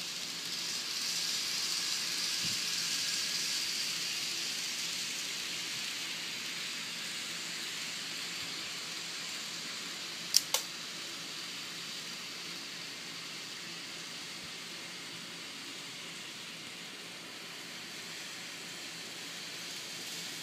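Model trains running on plastic sectional track, a steady whirring hiss of wheels and motors that is louder for the first few seconds as a train passes close by, then eases off. Two sharp clicks about halfway through.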